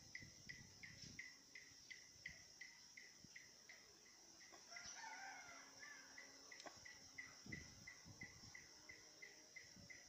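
Faint outdoor ambience: a steady high insect drone with a short chirp repeating about three times a second, and a rooster crowing faintly about five seconds in.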